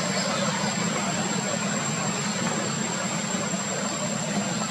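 Steady low rumble with hiss, under a thin constant high whine.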